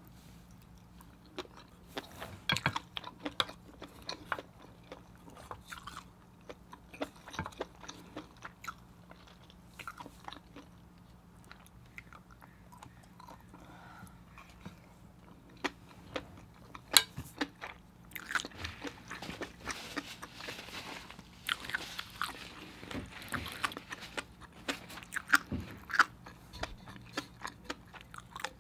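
Close-up chewing and mouth sounds of a person eating seafood and rice with fish-egg sauce: many short wet clicks, with a denser stretch of chewing about two-thirds of the way through. A faint steady low hum sits underneath.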